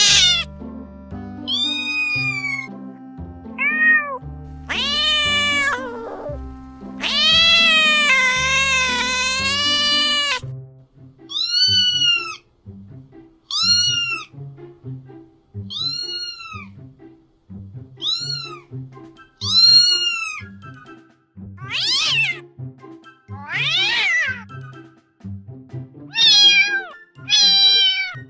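Domestic cat meowing over and over, about a dozen separate meows each rising then falling in pitch, with one long wavering meow from about 7 to 10 seconds in. Background music plays underneath.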